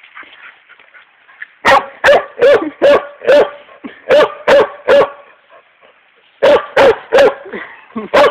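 A dog barking at a rock, in quick runs of sharp barks, about two to three a second, starting about a second and a half in. The barks come in groups of three to five with short pauses between.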